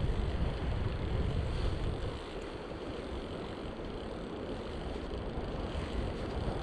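Steady rush of a mountain stream, with wind rumbling on the microphone that is heavier in the first two seconds.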